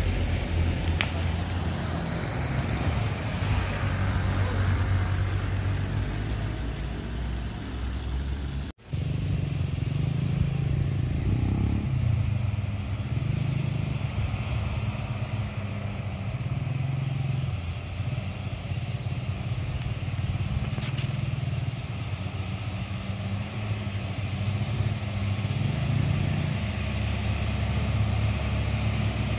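Diesel cargo truck engine working hard up a steep climb: a low, continuous drone whose pitch wavers up and down. The sound cuts out for an instant about nine seconds in.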